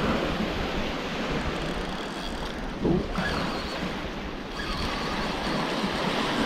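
Surf washing on the beach with wind rushing over the microphone, briefly louder about three seconds in.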